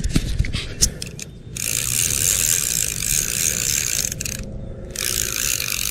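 Fishing reel being cranked to bring in a fish on the line: a few sharp clicks in the first second, then a steady whir from the reel that stops briefly twice as the cranking pauses.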